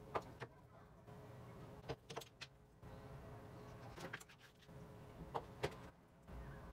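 Light clicks and taps of small parts being handled, about nine in all, coming in small uneven groups over a faint steady hum.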